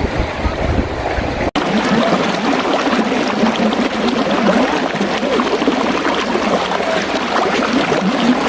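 Running water gurgling and trickling. For the first second and a half, wind rumbles on the microphone; then the sound drops out for an instant and the water carries on.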